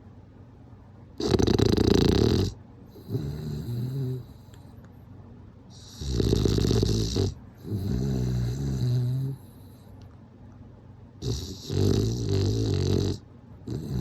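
Bulldog snoring in a steady rhythm, about one breath every five seconds, three times. Each snore has a loud, harsh rasp followed by a lower, tonal rumbling part.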